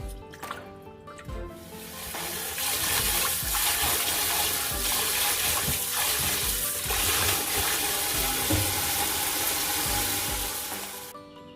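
Tap water running into a sink as soaked dried gondre greens are rinsed. The water comes on about a second and a half in, runs steadily, and stops shortly before the end.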